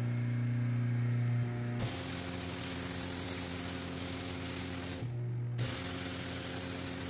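Canpump 1500 psi, 2.2 gpm electric pressure washer. Its motor hums steadily with the gun closed, then about two seconds in the gun opens and a jet of water sprays onto the wet concrete floor. The spray stops briefly about five seconds in, leaving the motor hum, and then starts again.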